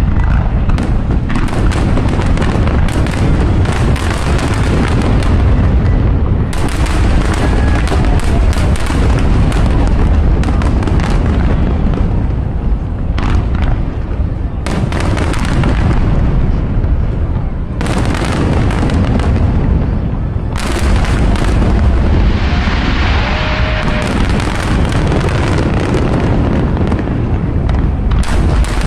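Fireworks display: aerial shells bursting in quick succession, many overlapping bangs over a continuous deep rumble.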